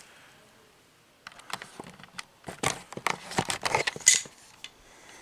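Handling noise from the camera being picked up and moved: a run of irregular clicks, taps and rustles starting about a second in and stopping about four seconds in.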